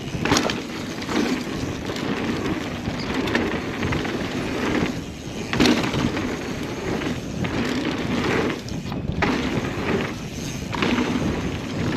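Mountain bike rolling fast down a dirt trail: continuous tyre noise over the ground with sharp knocks and rattles as the bike hits bumps.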